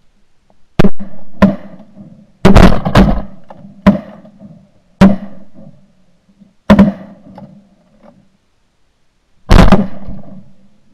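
Shotgun blasts at close range, about eight shots, several coming in quick succession near the middle, each dying away in a short echo.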